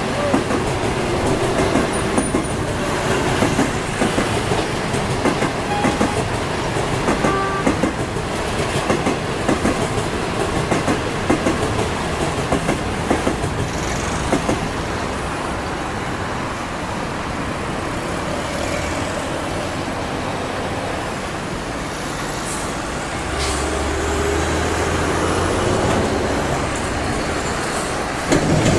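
Passenger trains of 25G coaches rolling past, their wheels clicking and clattering over rail joints and points in quick irregular strokes. The clicking thins out into a smoother rumble as the last coaches go by, and a low drone joins in briefly later on.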